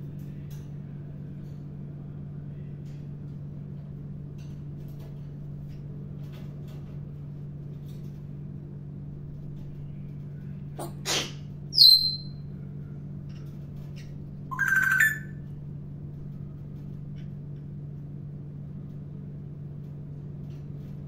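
African grey parrot calling: about halfway through a rising whistle, then a sharp, high whistle that slides down and is the loudest sound, and a few seconds later a shorter, harsher rising call. A steady low hum runs underneath.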